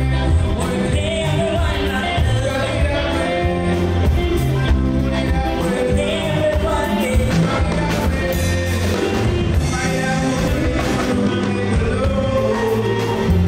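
Live band music with singing: a singer's voice over drums and electric guitar.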